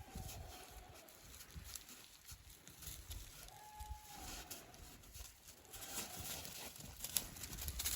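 Goats bleating, about three short calls, each with a steady, slightly arched pitch, over a low rumble.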